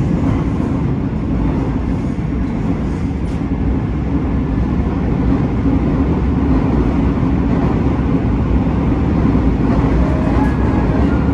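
Seoul Metro Line 2 subway train heard from inside the car while running between stations in a tunnel: a loud, steady low rumble of wheels and running gear.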